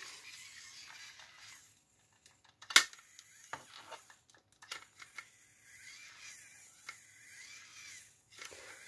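Small DC gear motor running at low voltage, driving a 3D-printed plastic scotch yoke crank that rocks a model excavator bucket back and forth. It gives a faint whine that wavers up and down in pitch. Light plastic clicks and knocks are scattered through it, the sharpest about three seconds in.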